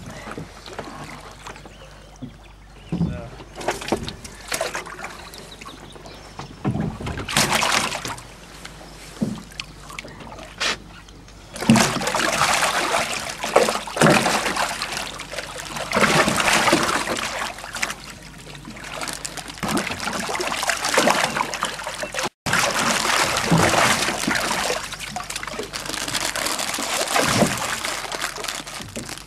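Pike thrashing in water, first in a landing net at the boat's side and then in a plastic tub of water, making irregular bursts of splashing that grow louder after about twelve seconds.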